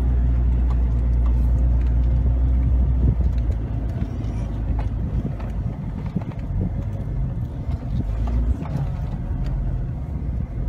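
Engine and cab rumble heard from inside a 4x4 crawling over a rough dirt trail, with scattered knocks and rattles from the bumps. The steady engine hum turns into a rougher, bumpier rumble about three seconds in.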